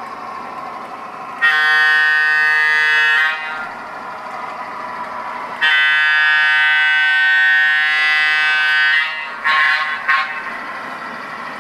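Onboard sound system of an MTH Premier O-gauge PRR boxcab electric locomotive sounding its horn: two long blasts and then a short broken one, over the steady running noise of the model train.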